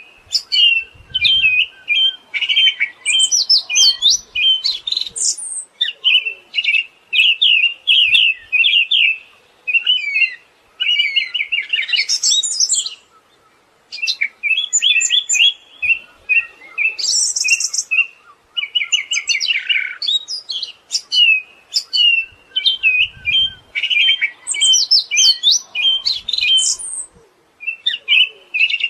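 Siberian thrush singing: quick chattering phrases of rapidly repeated notes mixed with higher whistled sweeps, almost without a break, with a short pause about halfway through.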